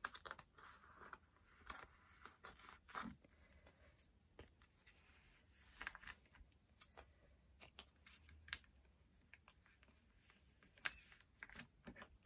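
Faint handling of photocards and paper: scattered light taps and clicks as cards are set down and moved, with brief soft rustles of paper.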